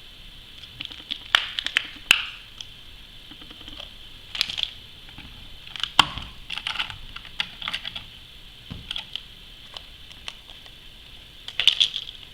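Scattered light clicks, taps and rustles of hands handling computer parts while installing an Intel Core i5-6600K processor in the motherboard's CPU socket. A sharp click comes about six seconds in and a quick cluster of taps near the end.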